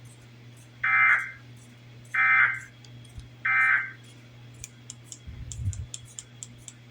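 Emergency Alert System digital data bursts: three short, harsh warbling bursts about a second apart, the SAME end-of-message code that closes the alert. A steady low hum runs underneath.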